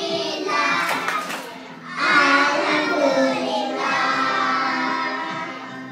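A group of young children singing together into a microphone, getting louder about two seconds in.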